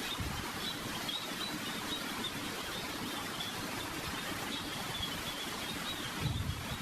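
Quiet outdoor ambience: a steady hiss with faint, small high chirps repeating throughout, and a low bump near the end.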